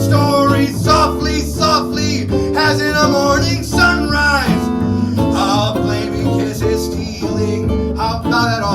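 Live jazz trio playing: guitar and bass, with a voice singing over them.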